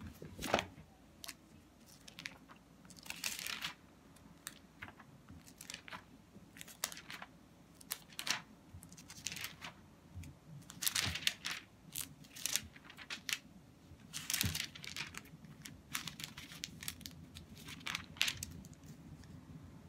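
Thin Bible pages being leafed through and handled: faint scattered rustles and light clicks, with a few louder swishes.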